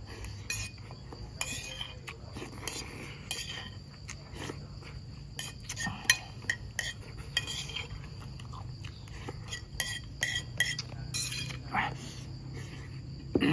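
Spoon clinking and scraping against a plate in repeated short strokes as someone eats, with insects chirping steadily in the background.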